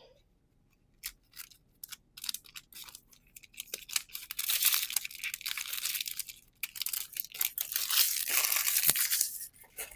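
Foil trading-card booster-pack wrapper being torn open and crinkled by hand: scattered crackles at first, then a dense crinkling and tearing from about four seconds in until near the end.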